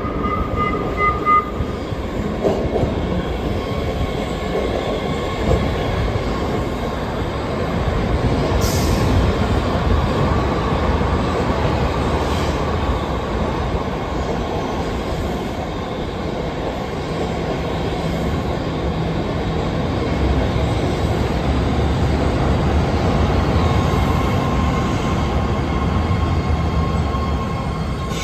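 BART Fleet of the Future eight-car electric train pulling into an underground station. A quick run of short beeps sounds at the start, then a steady rumble of wheels on rail runs on, with a thin wheel squeal that comes and goes as the train passes and slows.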